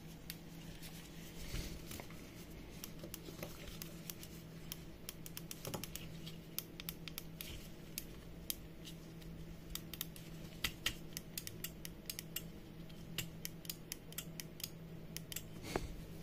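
Small irregular clicks and light scratches of gloved hands handling a plastic smart-plug housing with crocodile clip leads attached, over a faint steady low hum.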